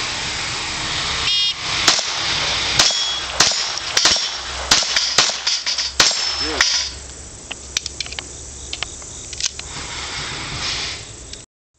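A shot-timer start beep about a second in, then a pistol firing a rapid string of roughly ten shots over about five seconds at steel plates, followed by a few fainter clicks.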